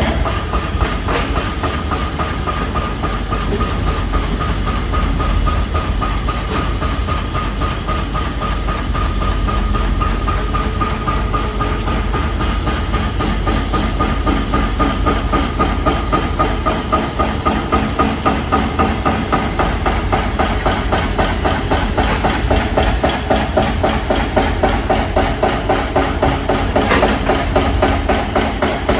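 Construction-site machinery: a steady low rumble with rapid, evenly repeated hammering knocks, getting somewhat stronger in the second half.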